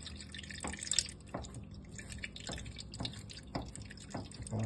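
Water dripping into a bowl in separate drops, roughly two a second, as it is added a little at a time.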